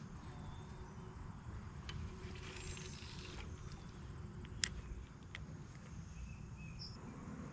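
Outdoor riverside ambience: a low, uneven rumble throughout, a brief hiss about two and a half seconds in, and a single sharp click a little after four and a half seconds, with a few fainter ticks.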